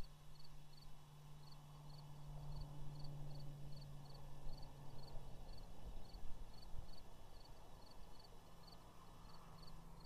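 Outdoor ambience with an uneven rush of wind on the microphone, a steady low hum that drops slightly in pitch about five seconds in, and a short high chirp repeating evenly about twice a second.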